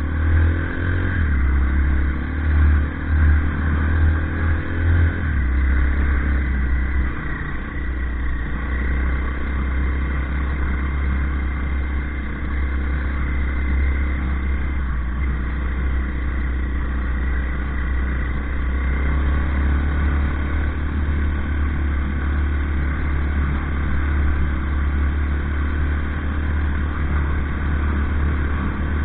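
Motorcycle engine running under way off-road. Its pitch rises and drops back a few times in the first five seconds as it accelerates, then it holds a steady cruising note.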